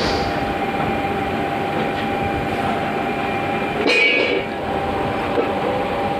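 Screw conveyor running, with a steady mechanical rumble under a constant hum. A brief high-pitched squeal comes about four seconds in.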